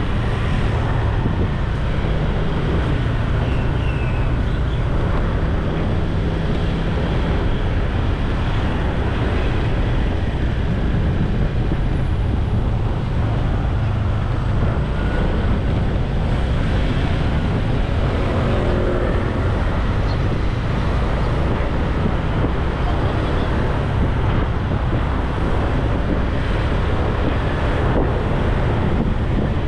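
Steady wind rush on the microphone mixed with a motorbike's engine and tyre noise while riding along a town road, with other traffic around. The noise is dense and low and stays even, without any sharp events.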